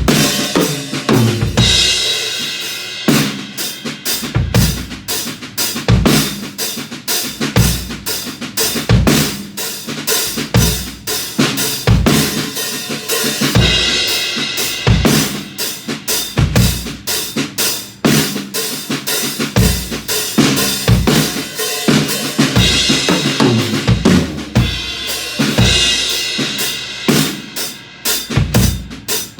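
Acoustic drum kit played as a groove: bass drum, snare with rimshots and ghost notes, and hi-hat or ride cymbal, with several spells of bright cymbal wash from crashes. Recorded on a phone.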